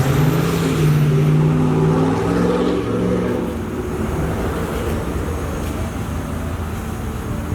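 A motor vehicle's engine running close by, its pitch rising briefly and holding for about three seconds before it fades into a steady low traffic rumble.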